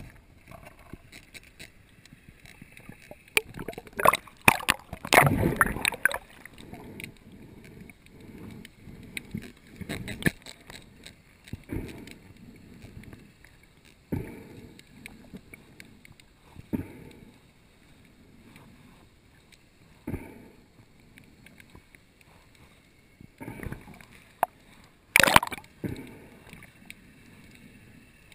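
Muffled underwater recording: irregular gurgling and water movement with scattered knocks and rustles as the diver handles the spear and a speared spiny lobster, loudest about four to six seconds in and again about twenty-five seconds in.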